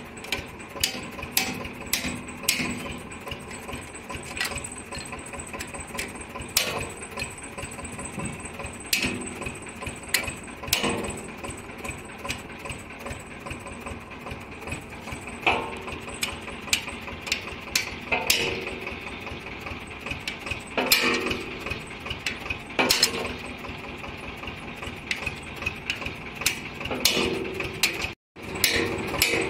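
Hammer blows on a steel cold chisel held against the steel boom of a Cat 424B backhoe: sharp metal-on-metal strikes at an uneven pace, roughly one a second with some pauses. An engine runs steadily underneath.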